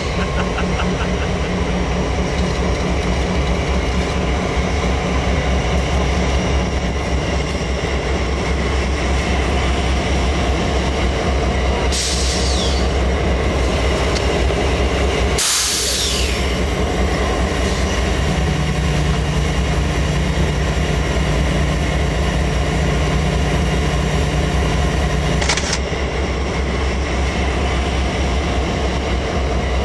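Diesel locomotive engine idling with a steady low drone, with a few short hisses around 12 and 15 seconds in and again near 26 seconds in.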